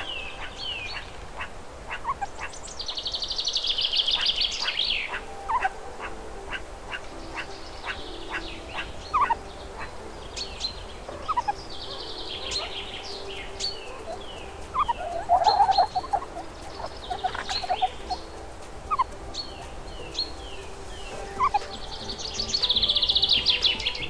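Songbirds chirping and calling: many short falling whistled notes, a fast buzzy trill about three seconds in and again near the end, and a louder lower warble around the middle.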